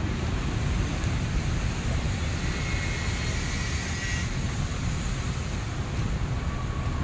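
Steady outdoor background rumble, with a brighter hiss swelling briefly in the middle.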